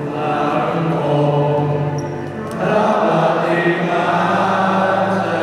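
A group of young men's voices chanting in unison, led by one voice on a microphone, drawing out long held notes. The chant grows fuller and louder about two and a half seconds in.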